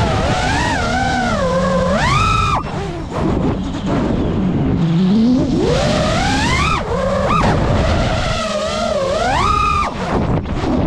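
GEPRC Mark5 5-inch FPV quadcopter's brushless motors and propellers whining in flight, the pitch swooping up and down with the throttle. The whine drops out sharply about two and a half seconds in and again near the end, as the throttle is chopped and punched.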